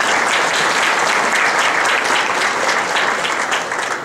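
Audience applauding, a dense patter of many hands that begins to die away near the end.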